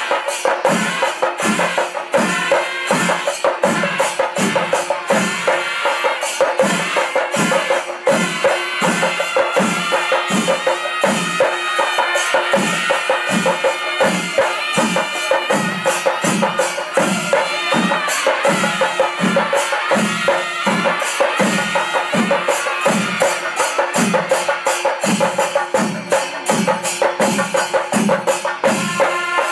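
Panchari melam ensemble playing: chenda drums keep up a steady beat under a dense, continuous clash of ilathalam hand cymbals, with steady held tones sounding over the percussion.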